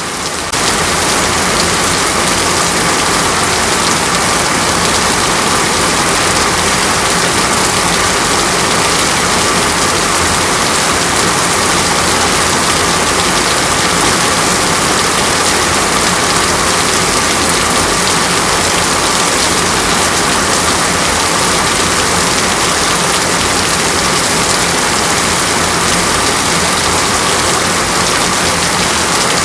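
Heavy rain falling steadily, a loud, even downpour, with a faint steady hum underneath.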